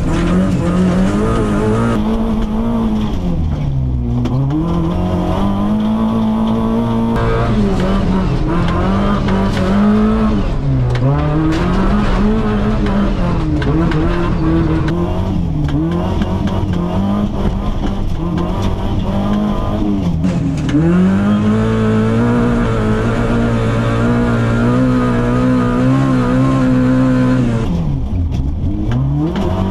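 Tuned Suzuki JB33 Jimny Wide engine, heard from inside the cabin, driven hard on a snow course. The revs stay high, drop sharply and climb again several times.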